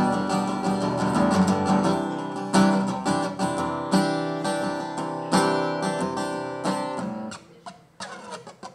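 Acoustic guitar played alone, ringing chords struck with strong strums about every second and a half. About seven seconds in it drops to quieter, lighter picking.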